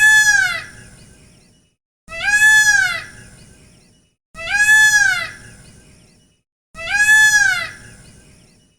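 Indian peafowl (peacock) calling four times, each a loud rising-and-falling wail, about two and a half seconds apart.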